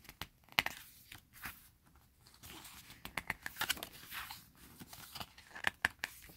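Glossy pages of an album photobook being handled and turned: irregular paper rustling with many small crackles and clicks.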